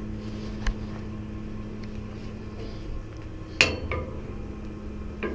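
Steady low hum with a small click about a second in, then a sharp metal-on-metal clink that rings briefly, followed by a lighter one, from tools or metal parts knocking on the chiller's filter housing as it is fitted and tightened.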